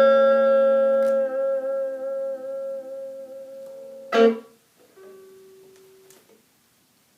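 Electric guitar played through a small solid-state guitar amp with a built-in 4-inch speaker. A chord is strummed and held with a wavering vibrato, and a second strum comes about four seconds in. A single note follows and dies away about six seconds in.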